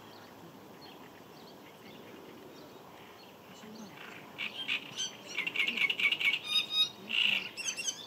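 A songbird perched on a reed stem sings a harsh, chattering song of rapid repeated notes. It is faint at first and turns loud about four seconds in.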